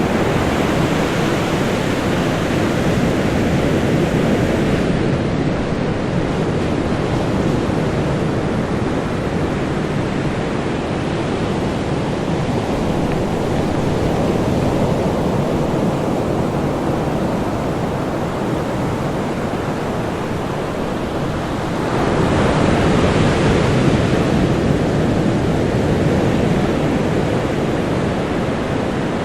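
Ocean waves breaking on a beach: a continuous wash of surf, with a fresh wave crashing about two-thirds of the way through and then slowly receding.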